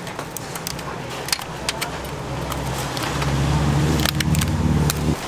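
Clear plastic clamshell food boxes being handled and pressed shut, giving a scatter of sharp plastic clicks and crinkles. From about three seconds in, a vehicle engine hums loudly underneath, then cuts off suddenly near the end.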